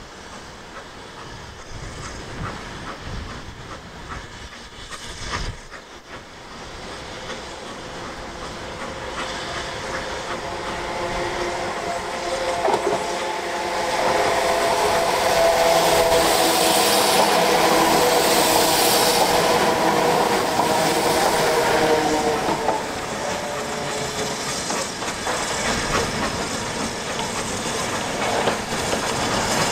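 A steam-hauled train approaching and passing close by. The sound builds for about fourteen seconds, then peaks with a loud hiss and a steady chord of tones for about eight seconds before easing off a little.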